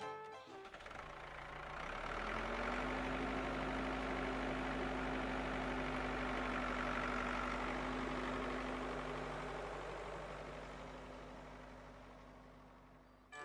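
Engine of a vehicle running steadily, fading up over the first two seconds and fading away over the last few seconds.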